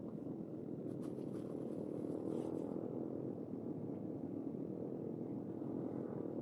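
A small boat's engine running steadily, an even low drone, with a couple of faint clicks about one and two and a half seconds in.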